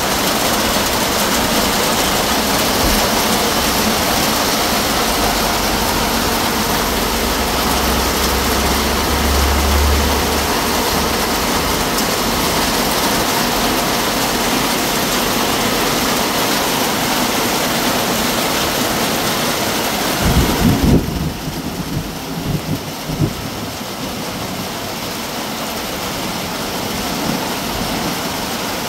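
Heavy rain pouring down, a steady loud hiss. A low rumble comes in about a third of the way through, and a few low thumps come about two-thirds in, after which the rain sounds duller.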